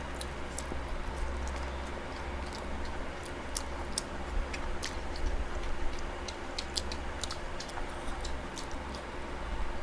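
Close-up eating sounds: chewing with irregular soft, wet mouth clicks and smacks as fried rice and chilli chicken are eaten, over a steady low hum.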